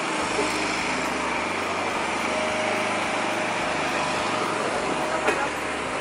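A small engine running steadily over busy street noise, with one sharp click about five seconds in.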